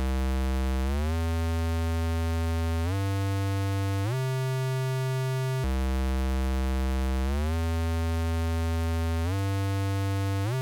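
Vocoded synthesizer sound effect: one steady, buzzy tone holding notes that climb in short gliding steps, drop back down, and climb again in the same pattern.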